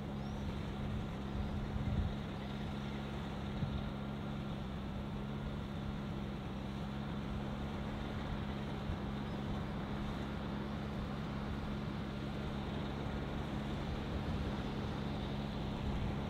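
Diesel engine idling with a steady hum.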